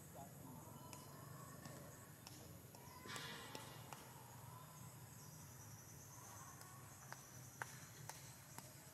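Near silence of outdoor ambience: insects keep up a steady, faint, high-pitched drone. A brief rustle comes about three seconds in, and a few faint sharp clicks near the end.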